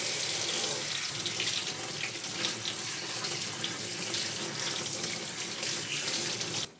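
Kitchen sink faucet running in spray mode onto mushrooms in a stainless-steel mesh strainer as they are rinsed by hand. The water cuts off suddenly near the end.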